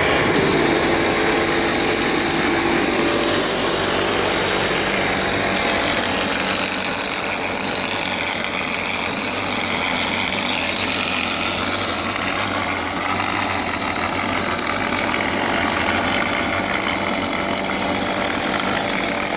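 Mortar spraying plaster machine running steadily, its motor and pump droning under the hiss of the spray gun blasting mortar onto a wall.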